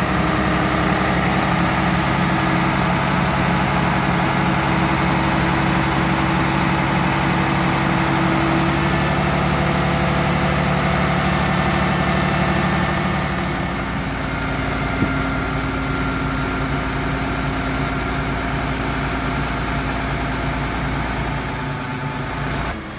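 Mobile crane's diesel engine running steadily while it hoists a suspended steel cradle, its hum shifting lower and a little quieter about two-thirds of the way through.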